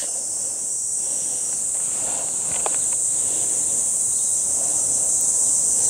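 A steady high-pitched hiss in the background, with a few faint soft clicks about two and a half seconds in.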